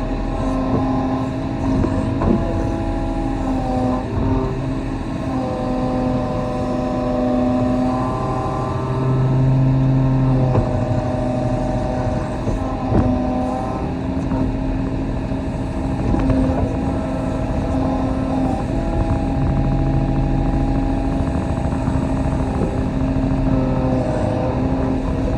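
Kobelco SK35 mini excavator's diesel engine running under changing load, its hydraulic whine holding steady tones that shift in pitch every few seconds as the controls are worked. A couple of sharp knocks come through, about two seconds in and again near the middle.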